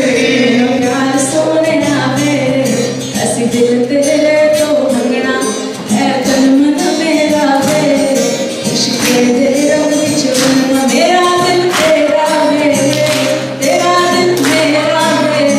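Live group singing, male and female voices together, with acoustic guitar accompaniment and sharp, regular percussive strokes, likely hand claps, keeping the beat.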